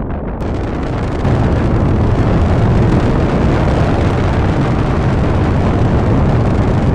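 Work-in-progress meteorite sound effect built from layered background rumbling and rocket thruster sounds, a dense, steady, deep rumble. A brighter hiss joins about half a second in, and it gets louder about a second in.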